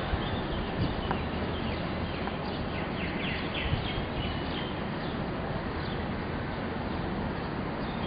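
Steady open-air ambient noise at a cricket ground, with a few short chirps about three seconds in.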